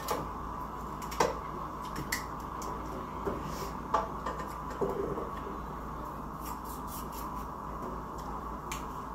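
Knife cutting pieces off a potato held over a pot, with scattered short clicks and knocks as the blade goes through and pieces drop into the pot. A steady hum runs underneath.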